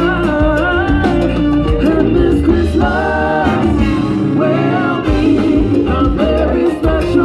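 Live Latin band music with a lead vocal singing over bass and percussion in a salsa style.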